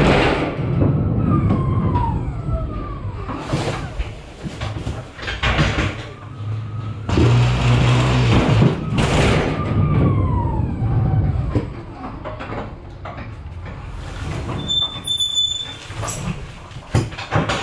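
Curtainsider trailer being unloaded with an electric ride-on pallet truck: repeated bangs and clattering on the trailer floor over a low hum, with long falling squeals twice. A single high beep sounds about fifteen seconds in.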